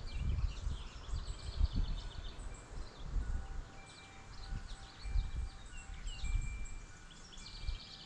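Small songbirds at a feeder chirping and twittering in quick trills, over a gusty low rumble of wind on the microphone. A few faint, held wind-chime tones ring through.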